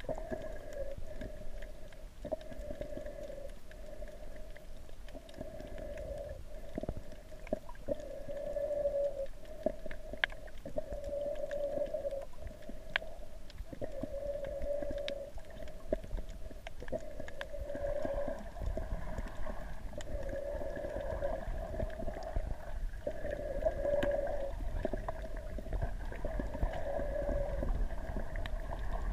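Muffled underwater ambience heard through a camera's waterproof housing: a steady hum that swells and fades every second or two over a low rumble, with a few faint clicks.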